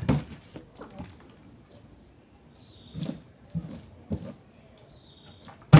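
A plastic bottle partly filled with water is knocked and set down on a tabletop with a few small taps. Near the end it lands hard on the table after a flip with one loud thud.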